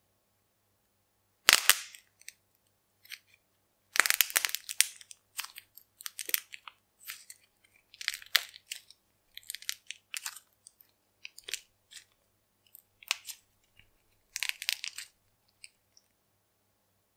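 Red-and-blue modelling clay cube crackling and popping as fingers squeeze and knead it, in irregular crunchy bursts: one loud crack about a second and a half in, then a dense run of crackles around four seconds in and scattered crunches after.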